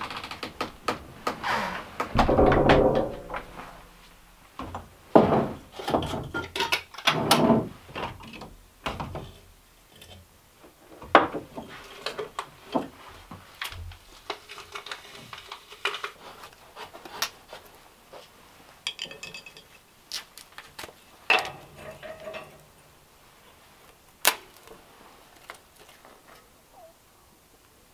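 Irregular knocks, clicks and scrapes of objects being handled and set down, busiest and loudest in the first third.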